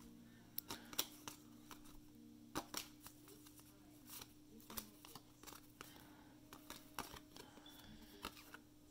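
1991 Upper Deck baseball cards being thumbed through one at a time in the hands: faint, irregular flicks and taps of card stock. A low steady hum runs underneath.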